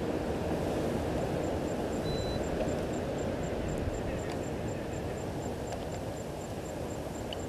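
Steady low rumble of open-air ambience, with a faint, evenly spaced high ticking starting about a second in and a few faint clicks.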